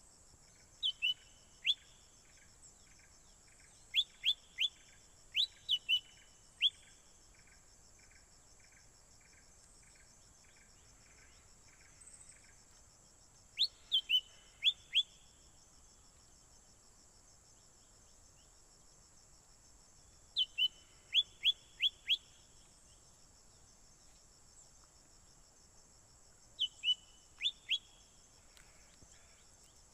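Wild songbird calling in short bursts of two to four sharp, falling whistled notes, the bursts repeating every several seconds. Under them runs a steady high insect drone, and for the first several seconds a softer pulsed call ticks about twice a second.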